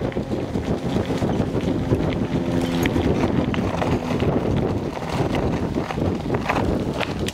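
Wind buffeting a camcorder microphone on a moving bicycle, with the crunch and rattle of the tyres and bike rolling over a gravel path.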